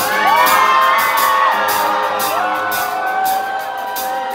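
Live band music from electric guitars and drums, with a steady run of sharp high hits, while crowd members whoop and shout over it.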